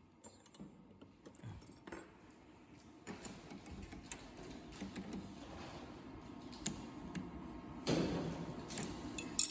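Scattered small metallic clicks and clinks from parts of a semi-automatic soldering machine being handled and adjusted by hand, growing busier and louder near the end.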